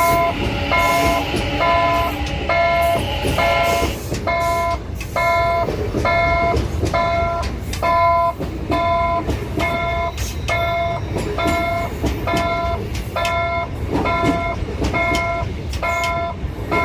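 Electric multiple-unit train of the Sarmiento line running out of the station with a steady rumble. Over it a bell-like warning chime repeats about twice a second, typical of a level-crossing signal.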